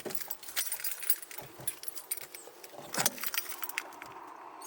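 Irregular clinking and rattling of small objects being fumbled and handled, like keys jangling.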